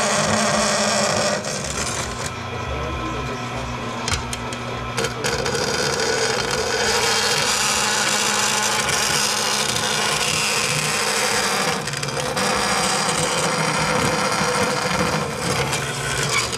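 Bandsaw running and cutting through sheet aluminum: a steady motor hum under the hiss and rasp of the blade in the metal. The cutting noise eases off briefly about a second and a half in and again about twelve seconds in.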